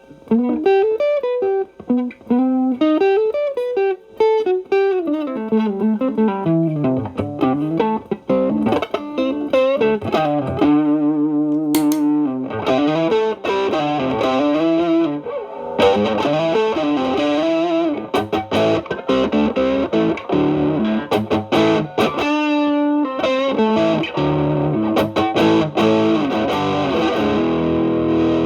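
Stratocaster electric guitar played through an Xotic BB Plus preamp pedal, its channel B set to low gain (2), into a Marshall Valvestate amp, giving a mildly overdriven tone. It plays single-note lead lines that descend over the first several seconds, then chords and picked phrases.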